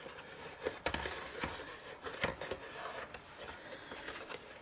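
Light handling noise of a hexagonal card plinth frame being pressed and handled: scattered soft taps, clicks and scrapes of card against card and the tabletop, a little louder about a second in and again past two seconds.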